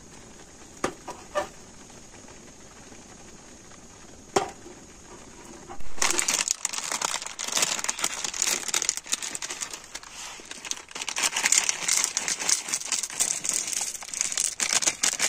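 Foil-lined cereal packet crinkling loudly as it is torn open and handled, starting about six seconds in, with the cereal pieces tipped out into a wooden bowl near the end. Before that, a few light knocks over a faint steady hiss.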